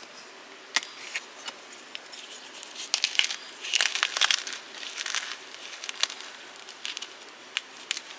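Fresh blocks of gym chalk being crushed: a run of irregular sharp crunches and crackles, thickest about three to four and a half seconds in, with single snaps before and after.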